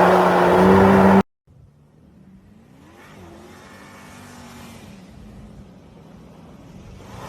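Porsche sports car engine held at high revs with a loud hissing haze over it, cut off abruptly about a second in. Then a faint car engine far off, its pitch rising and falling, slowly growing louder as it approaches.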